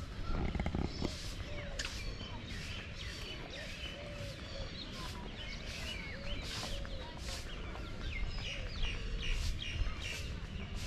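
Many small birds chirping together, a dense run of short quick calls over a low steady rumble.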